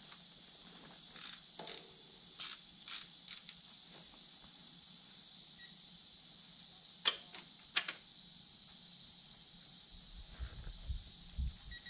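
Steady high insect chorus, with a few light metallic ticks of hand tools worked at the motorcycle's rear wheel and two sharp clicks a little over halfway through.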